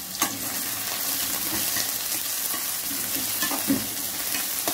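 Chopped onion and garlic sizzling in hot sunflower oil in a kadhai, while a metal spatula stirs them and scrapes and taps against the pan. There are sharper knocks just after the start and again about three-quarters of the way through.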